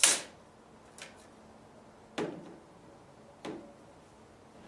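Four clicks and knocks of a propane tank level gauge assembly being handled on a workbench as its locking nut is tightened by hand. The first, at the very start, is the loudest and sharpest. The last two have a short, duller ring.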